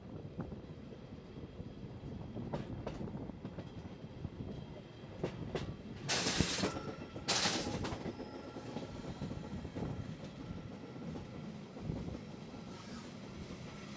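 Narrow-gauge mountain railway train running, heard from on board: a steady low rumble with wheels clicking over rail joints. About halfway through come two short, loud rushing bursts, and there is a faint wheel squeal.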